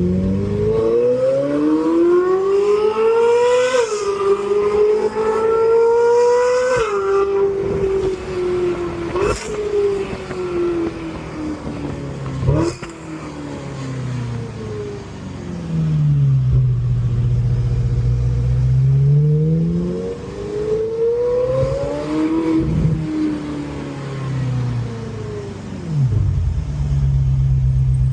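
Ferrari 458 Italia's 4.5-litre naturally aspirated V8 revved up steeply and held, then slowly falling, revved twice more, and settling to a steady idle near the end, with two sharp cracks along the way. It is running with one fuel injector deactivated during a misfire test; the mechanics trace the misfire to a burnt ignition coil with a bad contact.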